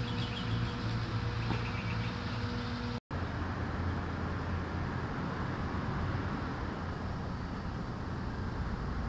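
Outdoor ambience: a steady noise with a low rumble, and faint short chirps from birds or insects in the first three seconds. The sound drops out for a moment at an edit about three seconds in, then the steady noise carries on.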